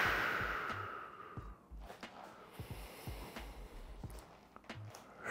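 A man's slow, deep breath out, a hiss that fades away over about two seconds. Then near quiet with a few faint soft taps, and another breath begins near the end.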